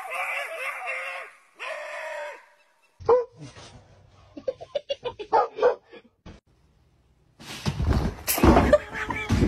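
Two yelping animal calls with a wavering pitch in the first couple of seconds. Then scattered light clicks and knocks, and from about three-quarters of the way in a stretch of noisy rustling and bumping.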